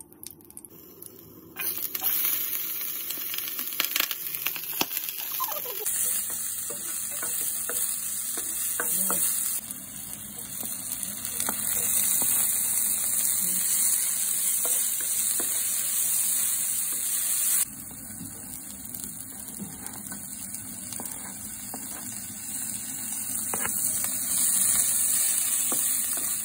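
Sliced ginger and onion sizzling in hot oil in a nonstick wok, stirred with a wooden spatula that taps and scrapes the pan. The sizzle starts about a second and a half in and jumps abruptly in level a few times.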